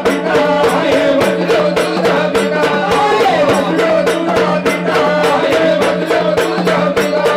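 Marathi folk song from a Waghya troupe: a voice sings over a steady drone, with quick, even percussion beats.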